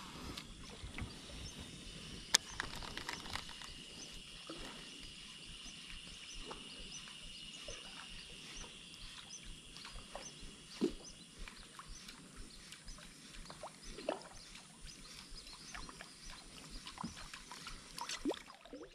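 Quiet outdoor ambience: a steady high-pitched insect drone that stops about eleven seconds in, with scattered faint clicks and short chirps.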